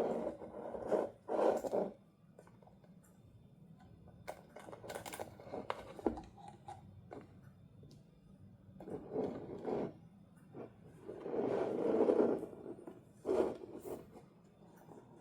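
Toy packaging being handled and opened: scraping and rustling in several bursts, with a run of sharp clicks and snaps about four to six seconds in.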